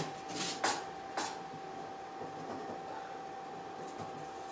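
A few light clicks and scrapes in the first second or so as a tape measure is handled against the ceiling, then quiet, with a faint steady tone in the background.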